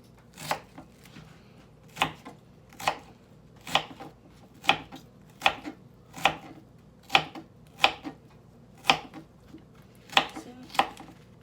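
Knife slicing through onion onto a cutting board: about a dozen sharp, even cuts, roughly one a second.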